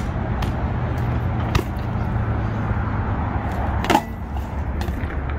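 BMX bike tyres rolling on concrete with a steady rumble, a few light clicks, and a sharp clack about four seconds in as the bike hits a skatepark box ledge.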